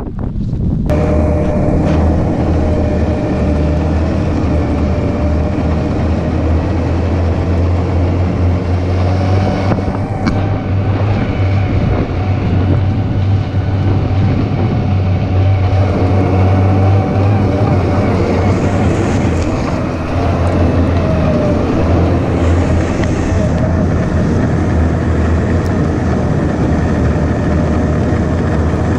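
Snowmobile engine running steadily under way, heard from on the machine.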